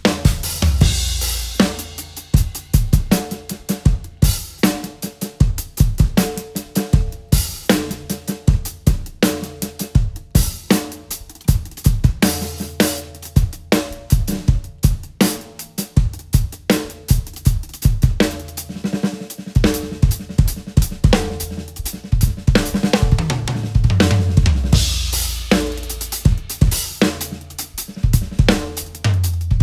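A solo on a DW drum kit with Meinl cymbals: dense, fast strokes on snare, toms and bass drum, with cymbal crashes about a second in and again near the end.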